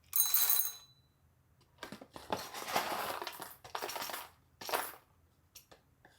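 Coffee-making utensils handled: a metal clink with a brief ringing tone at the start, then about two and a half seconds of dense rattling and clattering, a short clatter just before the end, and two small clicks.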